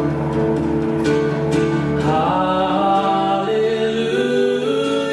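Worship song with guitar accompaniment between sung lines. A singing voice comes in about two seconds in, holding long notes.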